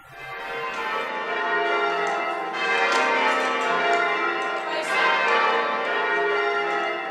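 A ring of large church bells being rung in changes, the bells striking one after another in quick succession with their tones overlapping. The sound swells up over the first second and then stays loud.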